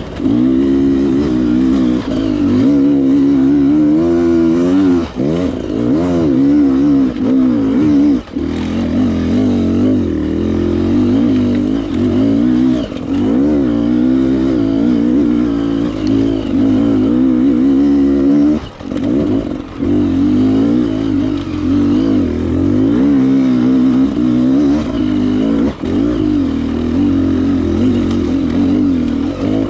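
Enduro motorcycle engine revving up and down as the throttle is worked on a rough trail, with the engine note rising and falling constantly. A few times the engine briefly drops off as the throttle is shut.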